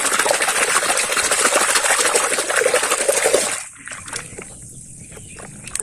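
Water splashing hard as a hand churns muddy toy trucks around to wash them. About three and a half seconds in the splashing stops, leaving quieter sloshing as a toy truck is swished through the water.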